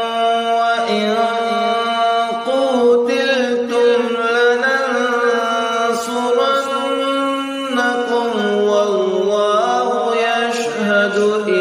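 Quran recitation in the melodic tajweed style: a single voice chanting Arabic verses, holding long drawn-out notes that glide and waver between pitches, with only brief breaks for breath.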